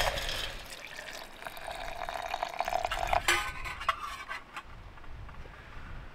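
A utensil stirring and scraping a rehydrated chili-and-rice meal in its container, with a few light clinks about three to four seconds in.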